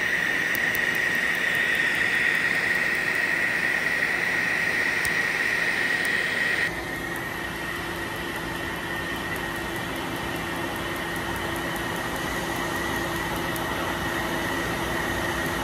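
Steady rushing air with a high whine from a cold-air skin chiller blowing through its hose onto the skin during laser tattoo removal, with faint rapid ticking from the laser's pulses. About seven seconds in the sound changes abruptly and drops a little.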